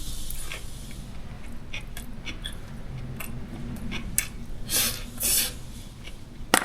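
Eating utensils clicking and scraping against dishware during a meal, with two short scraping or rustling noises about five seconds in and a sharp click near the end.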